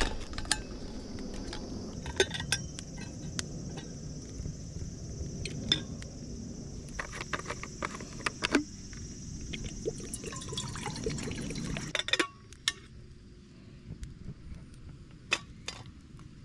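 Water poured from a bottle into a metal camping kettle, with light metal clinks. The pouring noise cuts off suddenly about twelve seconds in, leaving a quieter stretch with a few light knocks.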